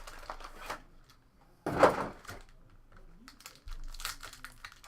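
Trading card packs and boxes handled and opened by hand: plastic wrapper crinkling and light clicks and taps of cardboard and cards, with one louder crinkle or rip about two seconds in.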